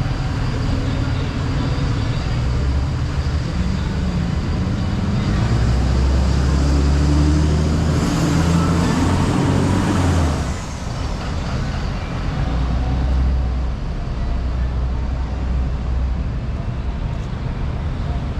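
Street traffic. A motor vehicle passes close, its low engine rumble building about five seconds in, loudest around eight to ten seconds, then dropping away quickly. A lower rumble from more traffic follows.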